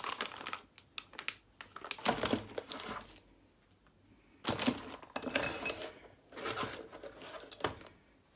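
Brass valves and fittings clinking against each other in a cardboard box as they are handled, with the rustle of the plastic bag they are packed in, in a series of short bursts.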